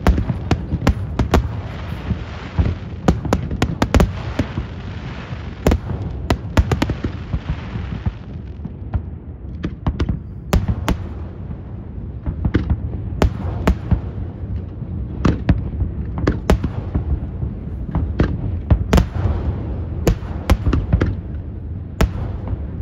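Aerial firework shells bursting in rapid, irregular succession: a dense run of sharp bangs and booms over a continuous low rumble. The bangs are thickest for about the first eight seconds.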